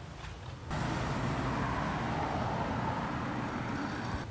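Street traffic noise: a steady rush of road noise that starts abruptly under a second in.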